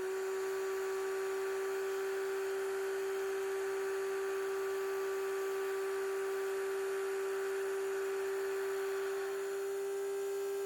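Truck cab low-air-pressure warning buzzer sounding as one steady, unbroken buzz: the air system is still below warning pressure while the compressor builds it up.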